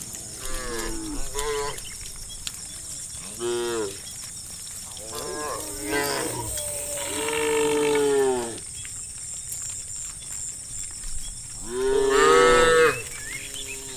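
Cattle mooing: about five separate calls, some rising then falling in pitch. The longest, about two seconds, comes near the middle, and the loudest is near the end.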